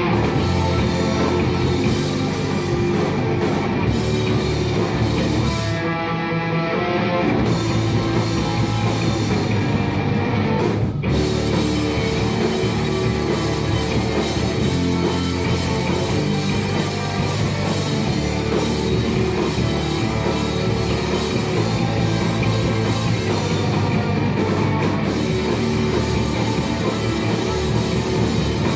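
Post-rock band playing live and loud: electric guitars, bass and drum kit. There is a momentary break about eleven seconds in, and after it the full band comes back in denser.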